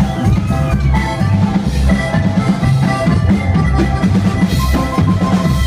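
Live band playing an instrumental passage between sung lines of a corrido, with a drum kit and a steady, beating bass to the fore and held notes above.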